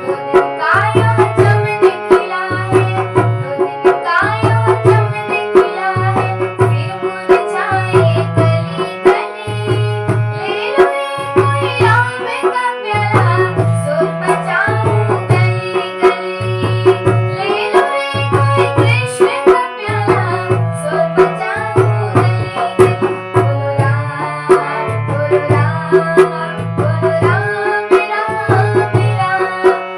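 Devotional Hindi bhajan music: tabla and a bending melodic line over a low bass note that repeats about once a second.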